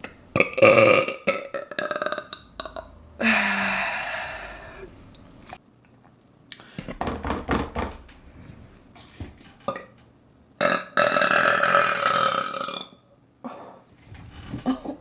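A woman burping several times in a row, two of the burps long and drawn out, over two seconds each, with short pauses between.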